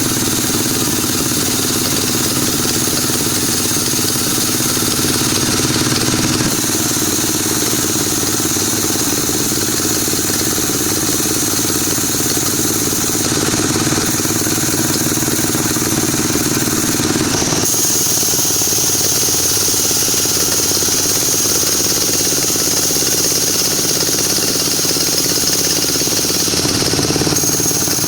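Power saw running continuously while cutting wood, a steady loud motor noise with a high whine; the sound shifts abruptly a few times.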